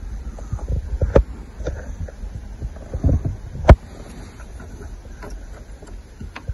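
Low rumble with scattered small clicks and knocks, the loudest a single sharp click about three and a half seconds in.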